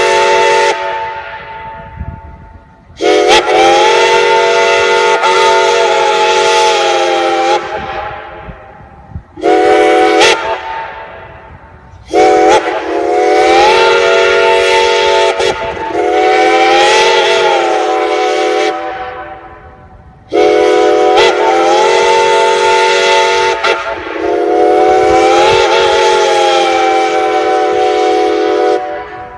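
Reading six-chime steam whistle on Chesapeake & Ohio 614, blown in a series of long blasts with one short one. Each full chord rises in pitch as it opens and swells mid-blast, and each blast dies away with a lingering echo.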